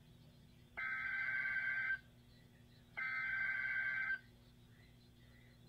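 Two bursts of an Emergency Alert System SAME header, the buzzy, warbling digital data tones that open an EAS warning, each a little over a second long with about a second's pause between them.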